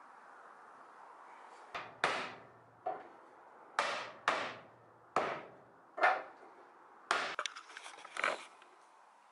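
Pine workbench base being knocked together at its mortise-and-tenon joints: about eight sharp wooden knocks, each with a short ring, spaced half a second to a second apart, then a flurry of lighter clatter near the end.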